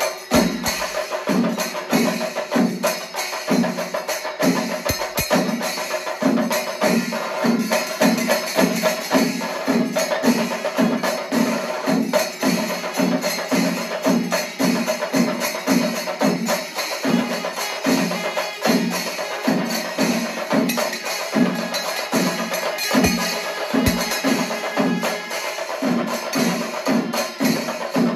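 Panchari melam percussion ensemble playing: chenda drums and elathalam cymbals. The bass drums beat a steady pulse about twice a second under a constant clash of cymbals.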